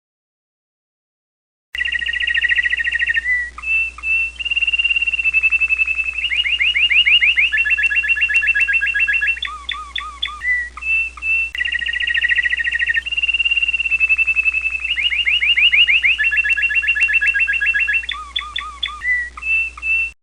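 American Singer canary singing a long song of rapid trills, rolls and gliding notes. It starts about two seconds in, and the same run of phrases comes round twice.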